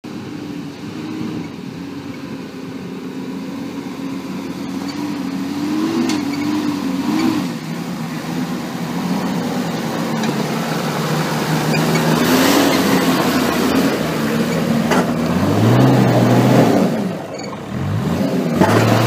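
Nissan GU Patrol's TD42T turbo-diesel straight-six working under load as the 4WD crawls over a rutted dirt track. The revs rise and fall, with a harder low pull in the last few seconds that drops away once and comes back. A few sharp knocks come in along the way.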